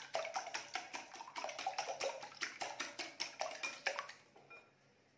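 Wire balloon whisk beating eggs and milk in a glass bowl: quick rhythmic clicking and sloshing of the wires against the glass, several strokes a second, stopping about four seconds in.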